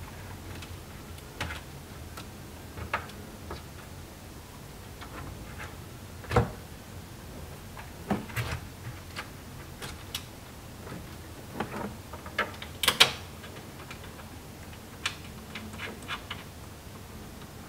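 Irregular light metallic clicks and taps of bolts being handled and set into the bolt holes of a platform panel, worked around to line up with nuts in 80-20 aluminium extrusion below. Two louder knocks stand out, about six and thirteen seconds in.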